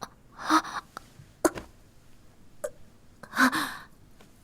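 A woman's short breathy gasps, three of them, the last the longest.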